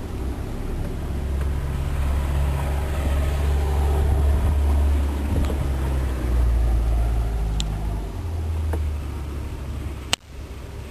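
A car's low, steady engine rumble, its pitch stepping up and down a little. A sharp click comes near the end, and the rumble drops away for a moment after it.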